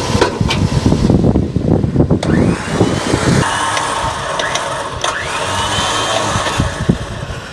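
Electric winch on a Toyota Hilux's front bar, worked from a corded remote, spinning up twice. Each time its motor whine rises and then holds steady as it hauls a rope taut to load-test a steel-post fence end assembly. A vehicle engine runs underneath.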